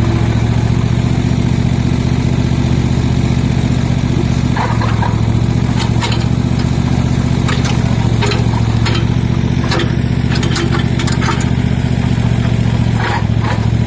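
Cub Cadet ZT1 Ultima zero-turn mower engine running steadily, with short squeaks starting about four seconds in and repeating irregularly: the loose belt driving the hydraulic pump is slipping under load.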